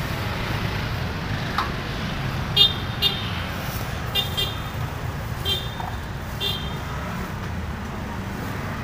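Steady low rumble of street traffic, with about six short high-pitched chirps scattered through the middle, the loudest a little over two seconds in.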